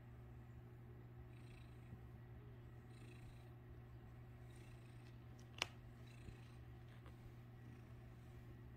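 Domestic cat purring faintly, a low uneven rumble, with one sharp click a little past halfway.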